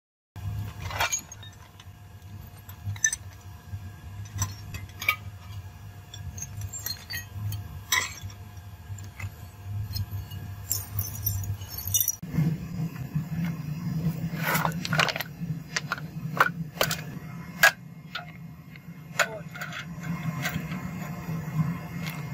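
Cast aluminium ingots and scrap aluminium pieces clinking and knocking against one another and the concrete as they are handled, in irregular clinks over a steady low hum.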